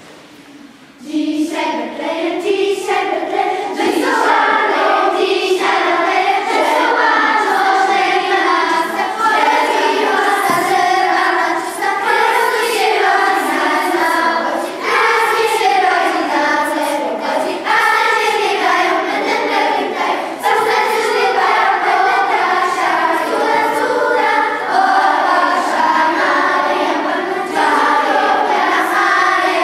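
Children's choir singing a Polish Christmas carol, coming in about a second in and carrying on without a break.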